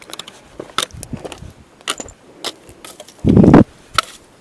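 Handling noise from a handheld camera: scattered clicks and rustles, with a brief loud low rumble about three seconds in.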